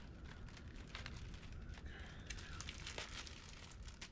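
Packaging being handled: crinkling and rustling, with scattered light clicks and knocks that come thickest a little past the middle.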